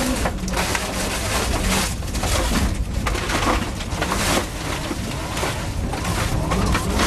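Mitsubishi Lancer Evo's turbocharged four-cylinder rally engine heard from inside the cabin, with a constant rattle and clatter of stones and slush hitting the underbody. The engine note rises near the end as the car accelerates out of a corner.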